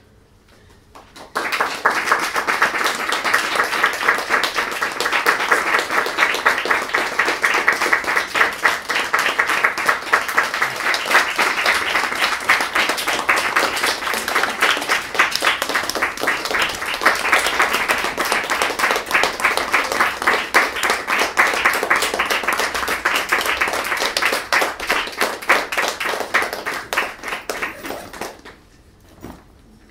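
Audience applauding: dense clapping that starts suddenly about a second in, holds steady, and dies away near the end.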